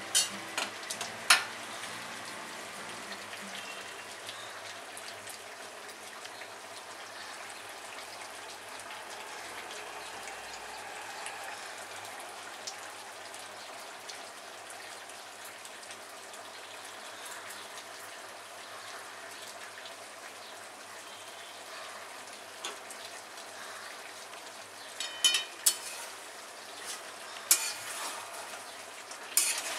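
Chicken curry with potatoes sizzling in a pan, a steady hiss. A metal spatula scrapes and knocks against the pan in the first second or two and several times near the end.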